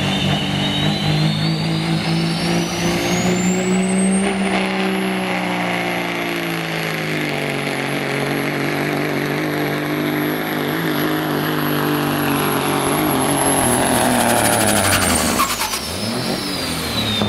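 Turbocharged diesel semi-truck engine at full throttle pulling a sled, with a high turbocharger whine that climbs steeply over the first five seconds and then holds. The engine note sags slightly under the load. Near the end the throttle comes off and the whine falls away.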